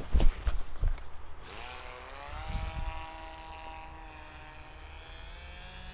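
Hand launch of an RC model paramotor: wind buffets the microphone for the first second, then the paramotor's electric motor and propeller whine, rising in pitch as it throttles up and then holding a steady tone as it climbs away.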